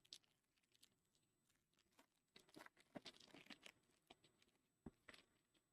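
Faint crinkling and tearing of a foil trading-card pack wrapper being opened, in scattered short crackles about halfway through and again near the end.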